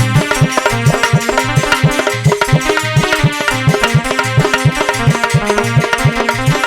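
Instrumental interlude of Indian devotional folk accompaniment: a hand drum of the tabla or dholak kind plays a quick rhythm of about four strokes a second, its low strokes bending upward in pitch, under a steady melodic line.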